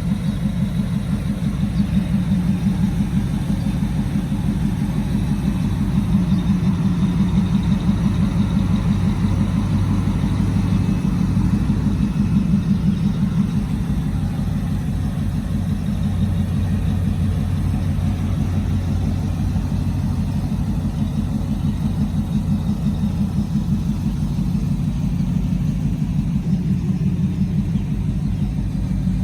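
2002 Ford Lightning's supercharged 5.4-litre V8 idling steadily through long tube headers and a Bassani cat-back exhaust, a low, even exhaust pulse that swells slightly a few times.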